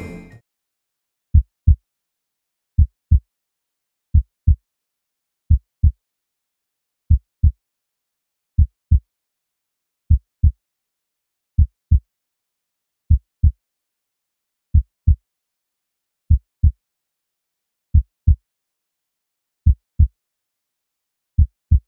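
Heartbeat sound effect: pairs of low thumps (lub-dub) repeating about every one and a half seconds, slowly getting further apart, with silence between them.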